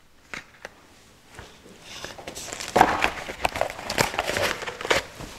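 A sheet of paper being unfolded and handled, crinkling and rustling with short sharp crackles; only a few faint clicks at first, then busier and louder from about halfway through.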